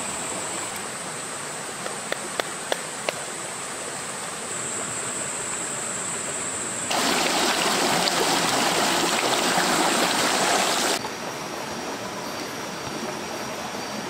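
Forest stream running steadily, with a few light clicks of spoons on bowls about two to three seconds in. Seven seconds in, a much louder rush of stream water cuts in, and about four seconds later it stops suddenly.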